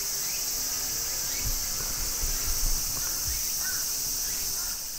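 Chorus of late-summer cicadas, tsukutsukuboshi among them, a steady high-pitched hiss. A few low thumps come near the middle.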